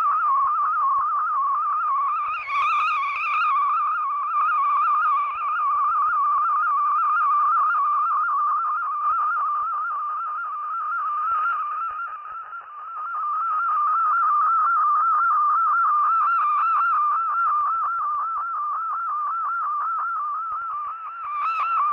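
Digital text-mode data signal received on shortwave through a software-defined radio: a single warbling tone around 1 kHz that hops rapidly and constantly in pitch, as in the MFSK modes used for text-over-radio broadcasts. The audio is cut off above about 3 kHz.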